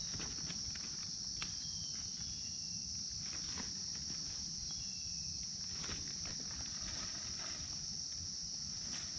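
Steady high-pitched insect chorus, with footsteps rustling through dry leaf litter and a few faint short chirps.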